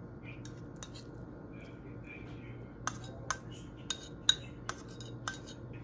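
A metal utensil clinking against ceramic dishes while caramelized onions are scraped from a bowl onto a steak. About six sharp clinks come in the second half, the loudest a little after four seconds in.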